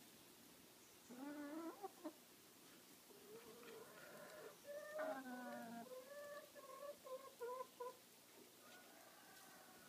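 Domestic hens calling: a rising call about a second in, then a run of drawn-out, wavering calls and short repeated notes, and a fainter held call near the end.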